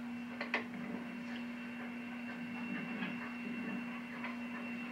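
Small steam locomotive moving slowly, its steam and exhaust heard faintly and thinly, as if played back through a television speaker, under a steady electrical hum. There are two sharp clicks about half a second in.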